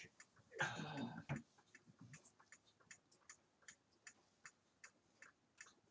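Quiet ticking of a wall clock, several ticks a second and slightly uneven, with a brief low voice sound about a second in.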